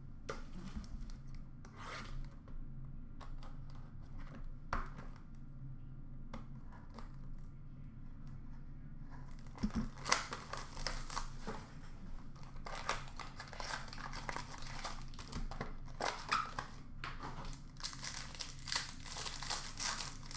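Trading-card pack wrapper crinkling and tearing as it is handled and ripped open. Only a few faint handling clicks come first; the dense crinkling starts about halfway through.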